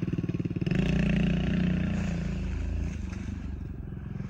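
Kawasaki KLX 110 pit bike's small single-cylinder four-stroke engine revving under way: the revs rise about a second in, then drop off and the engine fades.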